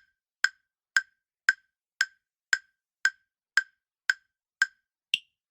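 Quiz countdown-timer sound effect: short, sharp wood-block-like ticks, about two a second, eleven in all, the last one higher-pitched. It counts down the time allowed to answer the question.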